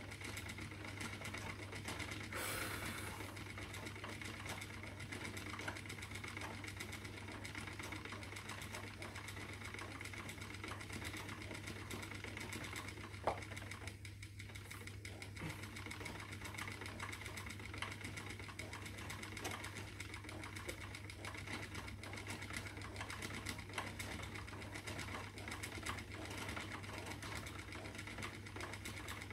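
Treadle spinning wheel running steadily while plying yarn, the wheel and bobbin turning with a fine ticking rhythm over a steady low hum. One sharp click about halfway through.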